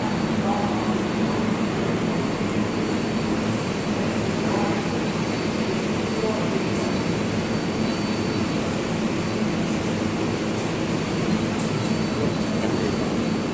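Steady subway station din: a low mechanical rumble with a thin, steady high tone above it and indistinct commuter voices.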